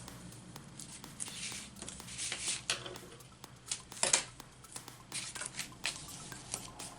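Double-sided tape and paper being handled: several short rustling, scraping strokes of tape going onto cardstock flaps, the loudest a sharp crackle about four seconds in.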